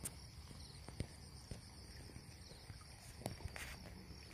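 Faint, steady high-pitched insect buzzing, with a few sharp clicks and a brief scratchy rustle about three and a half seconds in.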